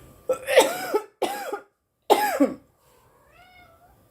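A woman coughing three times in quick succession, harsh and throaty with her voice breaking into each cough, a smoke cough after a bong hit. A faint short pitched sound follows near the end.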